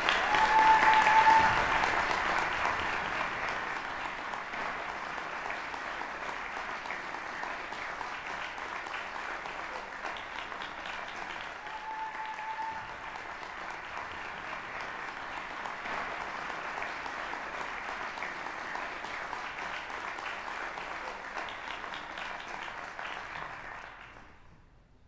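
Audience applauding: loudest in the first couple of seconds, then steady, and dying away near the end.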